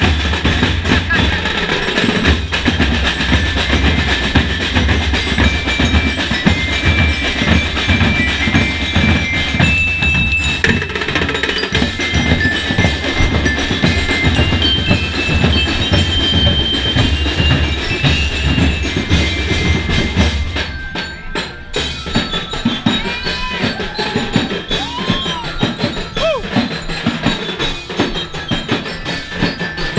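Ati-atihan street drumming: massed drums and percussion beating a fast, steady rhythm inside a packed crowd, with voices and shouts over it. The heavy low drumming drops away about two-thirds of the way through, leaving lighter percussion and crowd voices.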